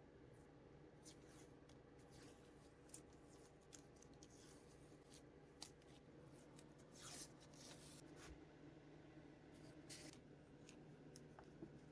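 Quiet: faint scattered clicks and light taps of small handling over a steady low hum.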